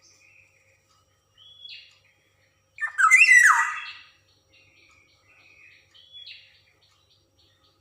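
Black-naped oriole (kepodang) calling. Soft, short whistled notes come first, then one loud, harsh, falling call about three seconds in, then more soft whistled notes.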